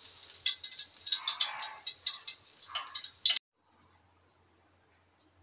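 Hot cooking oil in a wok crackling and popping as freshly fried fish pieces drain above it in a wire strainer. It cuts off abruptly a little over three seconds in.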